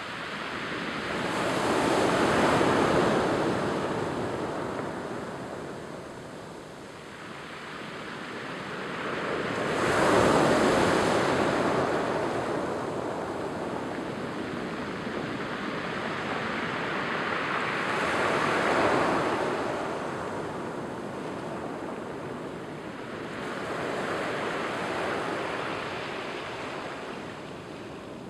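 Small ocean waves breaking and washing in over a cobble-and-pebble beach, each surge swelling and then fading, four times about seven to eight seconds apart.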